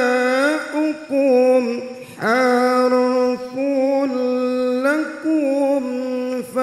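A male qari reciting the Qur'an into a microphone in the melodic, drawn-out style, holding long ornamented notes. He breaks off briefly for breath about two seconds in and again near the end.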